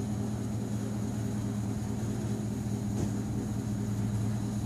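A steady low mechanical hum with an unchanging pitch.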